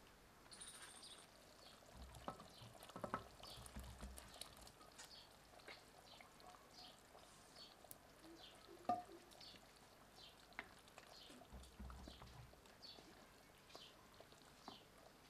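Quiet sounds of a curry simmering in a clay pot on a wood fire, with a few sharp knocks of the pot being handled and stirred, the loudest about nine seconds in. Faint birds chirp repeatedly behind it.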